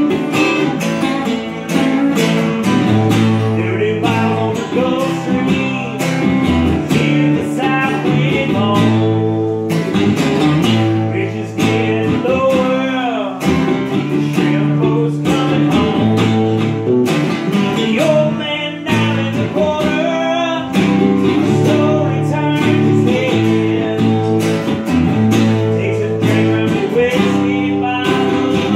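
Two acoustic guitars playing together, a steady run of strummed chords and picked notes.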